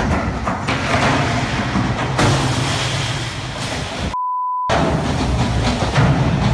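Loud rushing wind and water with a low rumble, as on a ship in a storm. About four seconds in, the sound cuts out for a half-second censor bleep, a steady high beep, and then the rushing returns.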